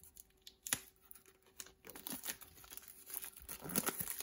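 Thin plastic shrink-wrap being torn and peeled off a deck of game cards: faint crinkling and crackling, sparse at first and busier and louder in the second half.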